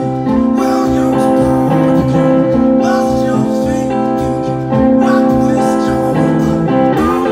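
Full live band playing a blues-rock song, with electric guitars, held chords from horns and keys, and a male lead voice singing.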